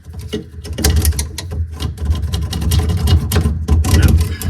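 Drain snake being run into a sink P-trap, its cable rattling and clattering rapidly against the pipe over a low rumble. Loud throughout, stopping abruptly at the end.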